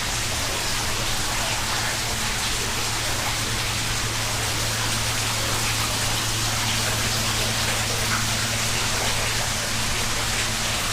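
Rain falling and water dripping and splashing: a steady hiss with scattered small drips, over a steady low hum.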